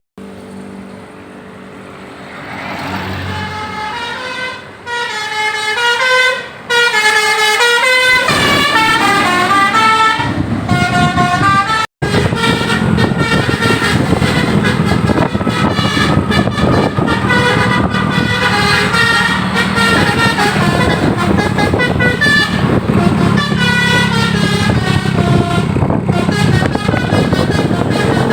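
Bus basuri (telolet) multi-tone horns playing melodic tunes, a run of short horn notes stepping up and down in pitch, over the low rumble of the bus engine. The horns start fainter and are loud from about six seconds in, with a sudden brief dropout near the middle.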